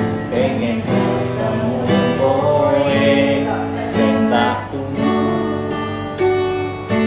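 A Javanese pop song sung over a strummed acoustic guitar, with steady rhythmic strokes under the sung melody.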